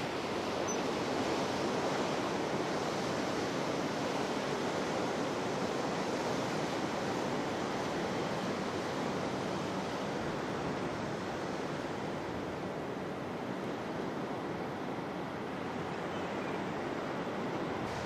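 Steady wash of sea surf and waves.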